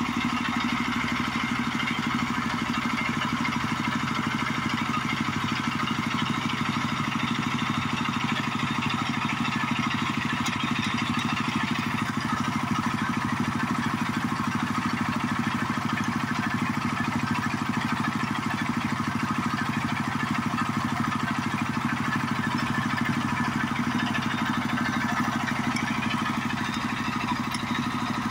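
Diesel engine running steadily at a constant speed, an even hum with no revving.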